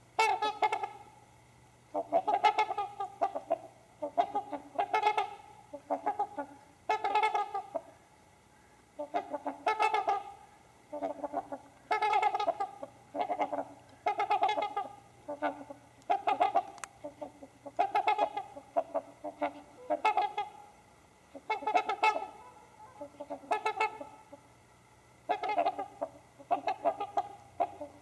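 Several trumpeter swans calling, with repeated bouts of nasal honks about every two seconds and short pauses between them.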